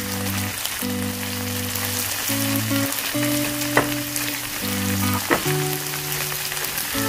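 Chopped onion and tomato paste sizzling in a non-stick frying pan as a plastic spatula stirs them, with two sharp clicks of the spatula against the pan about four and five seconds in. Soft background music with held chords plays under it.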